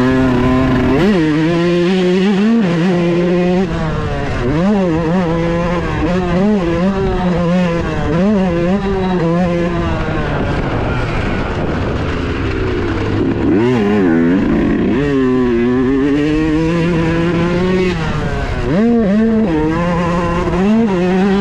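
2018 Yamaha YZ125's single-cylinder two-stroke engine at race throttle. Its pitch climbs and drops again and again as it is revved out, shifted and rolled on and off the throttle around the track.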